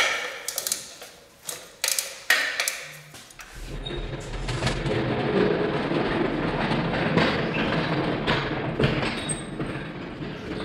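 Sharp metallic clicks and knocks of hand tools working on the engine mount bolts, then from about three and a half seconds in a steady rolling rumble as a steel engine hoist's casters roll across the concrete floor.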